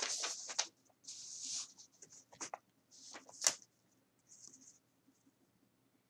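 A folded sheet of paper rustling as it is handled and smoothed flat, in several short rustles, with a few light taps and one sharp tap about three and a half seconds in.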